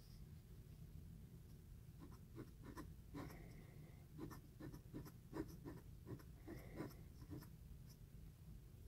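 Quiet scratching of a metal pointed dip-pen nib on paper in many short strokes as letters are written, with two brief high squeaks, about three seconds in and again near seven seconds.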